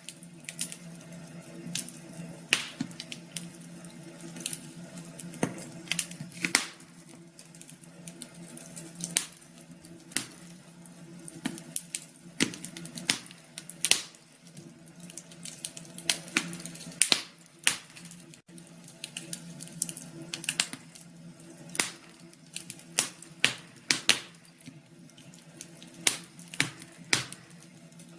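Wood fire crackling, with irregular sharp pops and snaps over a steady low background.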